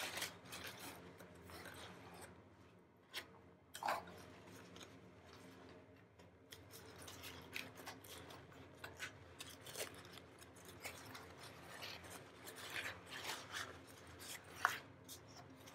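Small scissors snipping through tape and tissue-paper wrapping, mixed with the rustle and crinkle of paper being pulled open: faint, scattered clicks and scrapes.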